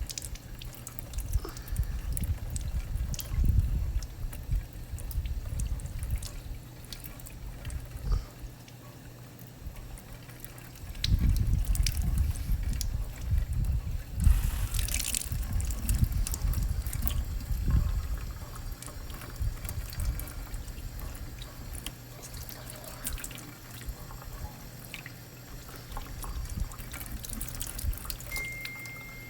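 Hot water running from a kitchen tap over a plastic popsicle mould, splashing and trickling to loosen the frozen strawberry popsicles. It grows louder about a third of the way through.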